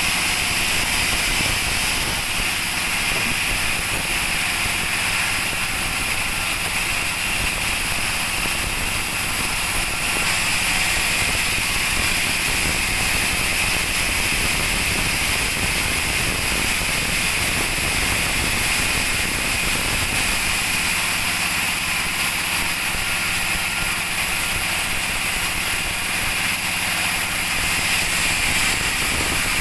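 Two-stroke chainsaw engine running steadily at a high, even speed, with a strong high-pitched buzz and no let-up.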